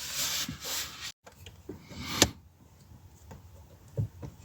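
A few light clicks and knocks, the loudest a sharp click about two seconds in and a low knock near the end.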